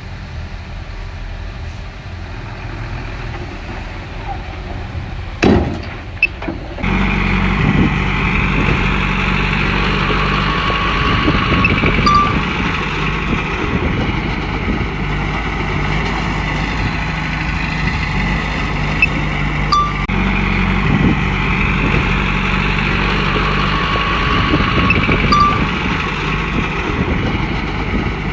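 Komatsu bulldozer's diesel engine running steadily, with a couple of sharp knocks about five to six seconds in, after which the engine runs louder. Short high squeaks come through every several seconds.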